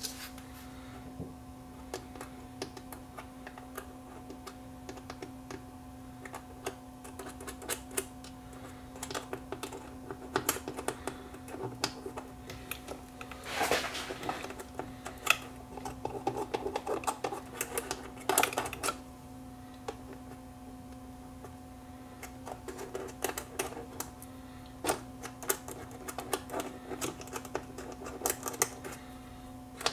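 Irregular small clicks and taps of a hand tool and metal levers being worked in a Technics SL5200 turntable's auto-return and cueing mechanism, thickest in two spells through the middle and near the end. A steady hum runs underneath.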